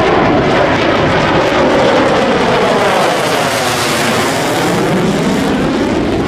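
Loud, steady jet aircraft noise as of a low fly-past, with a slowly sweeping, swirling tone.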